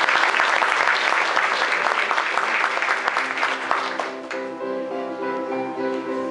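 Audience clapping over music with held notes; the applause dies away about four seconds in, leaving the music.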